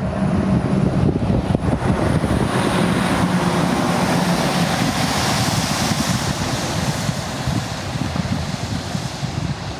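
A motor vehicle running close by, its engine and tyre noise swelling about five seconds in and easing off near the end.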